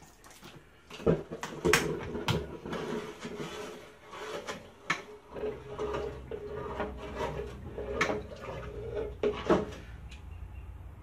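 Hard metal knocks from tongs and the heat-treat kiln door as red-hot steel is taken out, then a wavering sizzle and bubbling for several seconds as the hot steel is held in quench oil to warm it, with a low hum joining about halfway and another knock near the end.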